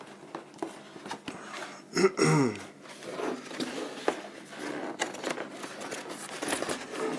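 Cardboard and plastic packaging of a boxed electric toothbrush being opened by hand: scattered rustling, scraping and small clicks. A short murmured voice sound about two seconds in.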